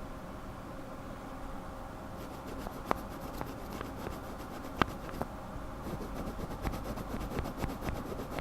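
Lubed linear mechanical keyboard switches pressed slowly close to the microphone. After two seconds of faint steady hum, the stems give a scratchy rubbing with fine ticking, two sharper clicks about three and five seconds in, and denser ticking near the end.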